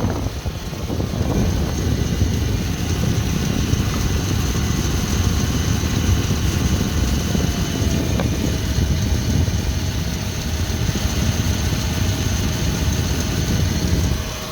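Dodge Ram 1500's 3.6-litre V6 idling with a steady, rough low rumble, the A/C compressor running on its newly replaced clutch, which now engages and works. A faint steady tone joins in about eight seconds in.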